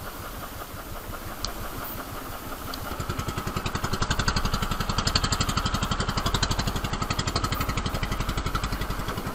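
Small outrigger boat's engine running with a fast, even beat, getting louder about three seconds in.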